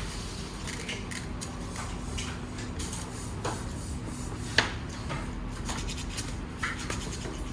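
Small metal linear-rail parts being handled and fitted together: light clicks and rubbing, with one sharper click a little past halfway, over a steady low hum.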